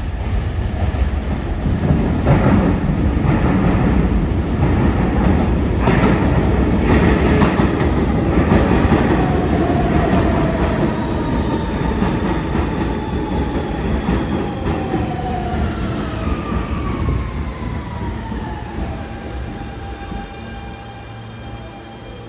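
New York City subway train running through the station, wheels clacking over rail joints for the first several seconds, then its electric motors whining steadily down in pitch as it brakes and slows.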